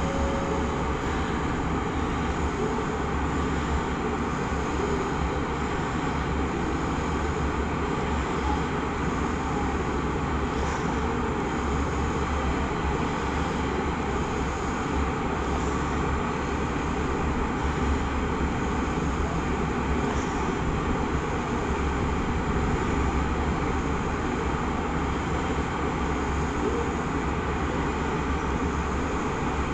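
JR Freight EH500 electric locomotive running with a steady drone and a deep rumble underneath as it slowly starts a heavy freight train away.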